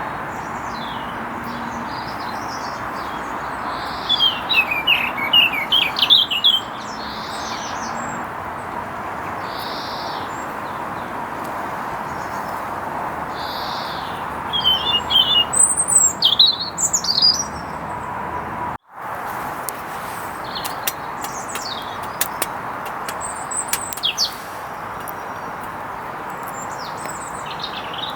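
A songbird sings two bursts of rapid, high chirping notes, about 4 seconds in and again around 14 seconds, over a steady rushing background. The sound drops out abruptly just before 19 seconds, then fainter chirps follow.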